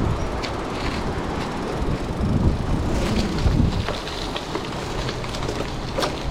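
Gravel bike riding on a gravel path: tyres rolling and crunching, the bike rattling with a few sharp knocks, and wind buffeting the microphone.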